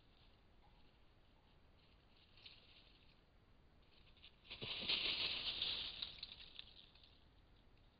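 Dry leaf litter rustling and crackling as a badger and a fox move over it. It is faint at first, then a loud scuffle of leaves for about two seconds around the middle that dies away.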